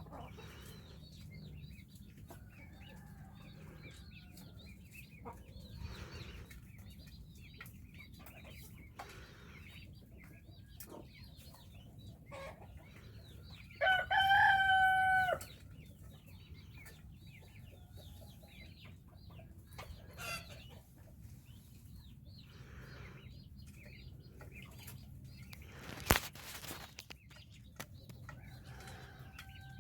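A flock of farmyard chickens clucking and calling while feeding. About halfway through, a rooster crows once, loud and about a second and a half long. A single sharp knock comes near the end.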